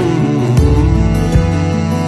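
Background music led by guitar, with a regular beat.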